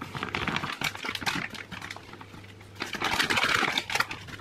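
Brown sugar being scooped into a measuring cup: quick scraping and tapping, then a denser rustling scrape about three seconds in.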